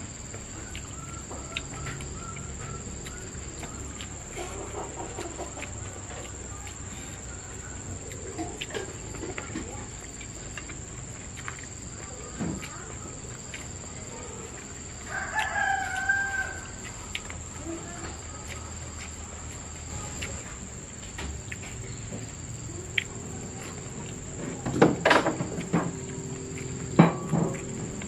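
A rooster crows once about halfway through, over a steady high-pitched insect drone. A few sharp knocks come near the end.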